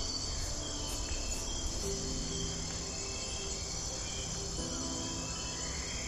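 Steady insect chorus, over soft background music of held notes that shift every couple of seconds.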